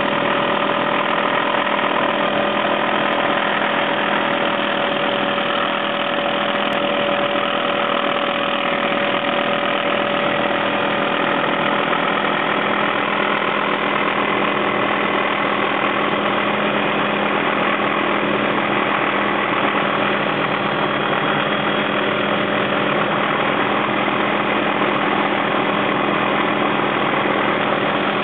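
Helicopter engine and rotors running steadily in flight, heard from inside the cabin: an even drone with a few held tones, one of which fades out about halfway through.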